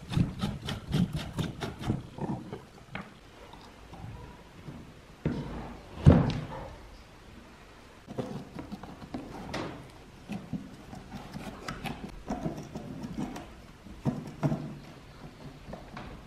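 Hand work on an old rusty electric fan: quick rubbing strokes over the dirty wire guard for the first couple of seconds, then scattered knocks, scrapes and handling noises on the metal base. A loud knock comes about six seconds in, and a screwdriver works at the base's screws.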